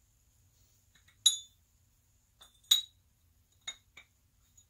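Sharp metal-on-metal clinks from an engine piston, wrist pin and connecting rod being fitted together by hand: four in all, the two loudest about a second and a quarter and about two and three-quarter seconds in, then two lighter ones close together near the end.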